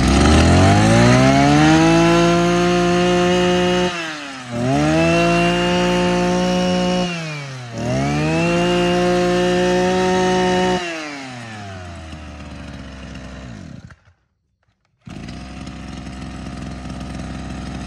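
Maruyama MB265 brush cutter's 26cc two-stroke engine revved up to full throttle three times, each rev held about three seconds before dropping back. It then settles to idle, and after a brief silent break it idles steadily again.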